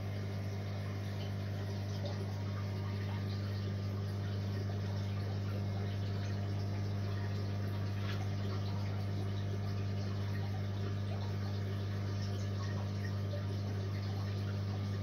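Aquarium sump system running: a steady low hum from the pump with water trickling through the sump.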